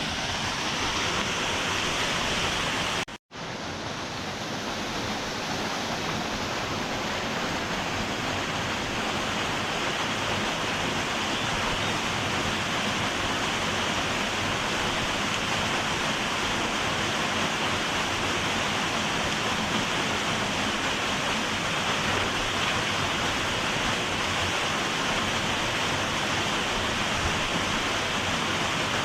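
Steady rush of water from a stream and small waterfall. The sound cuts out for an instant about three seconds in, then carries on.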